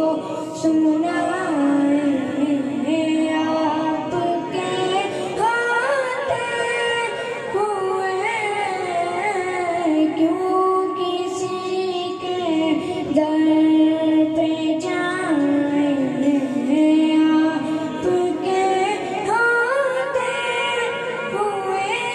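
A boy's high voice singing a naat into a microphone, carried over a PA sound system, with long held notes and wavering, ornamented pitch.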